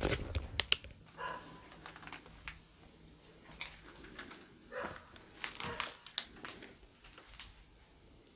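Footsteps and handling noise in a debris-strewn room: scattered sharp clicks, crinkles and soft rustles at irregular intervals, the loudest clicks about a second in.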